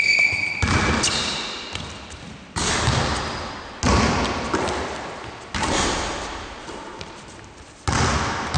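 Basketballs thudding on a wooden gym floor, one sudden hit every second or two, each ringing out in the hall's long echo. A brief sneaker squeak on the court at the start.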